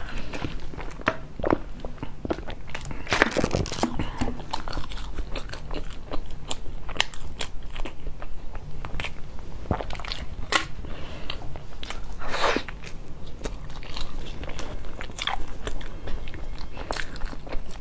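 Close-miked eating sounds: a person chewing and biting, with irregular sharp clicks and crackles.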